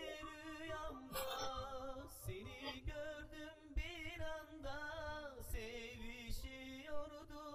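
Quiet Turkish love song with no lyrics sung: a wavering melody line with strong vibrato and ornaments over the accompaniment.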